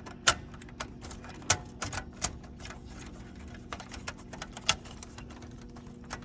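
Irregular sharp clicks and knocks of a metal hard-drive bracket being handled and seated into a copier's chassis, several in quick succession in the first half and a few more later, over a faint steady hum.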